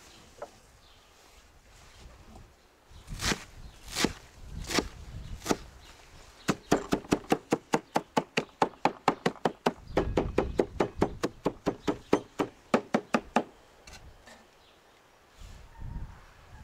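Kitchen knife chopping fresh green herbs on a wooden cutting board: a few separate strokes, then fast, even chopping at about five strokes a second for around seven seconds before it stops.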